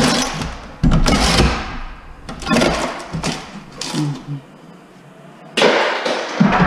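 Wooden kitchen wall cabinets being knocked and pried loose with a long bar during demolition: four loud bursts of banging, the last near the end.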